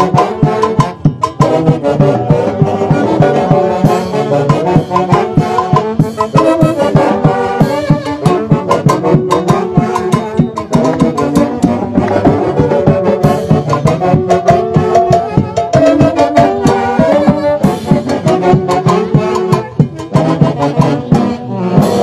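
A live village festival orchestra playing a Pascua, an Andean Christmas dance tune, with horns in front over a steady beat.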